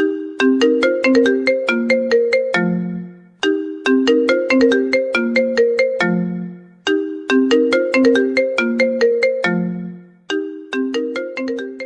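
Mobile phone ringtone melody: a short phrase of quick, bright notes ending on a longer low note, repeated about every three and a half seconds.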